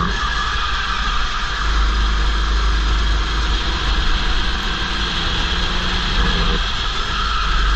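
Go-kart engine running hard at race speed, its note shifting in pitch as the throttle comes and goes, with heavy wind rumble on the helmet-mounted camera.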